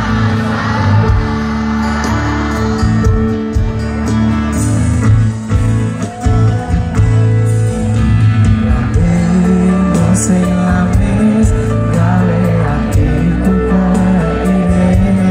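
Live band music with singing played loud through a PA system, heard from within the crowd, with a steady, heavy bass line.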